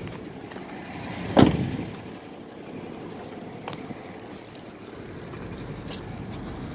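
Steady street traffic noise, with one loud sharp knock about a second and a half in and a few faint clicks.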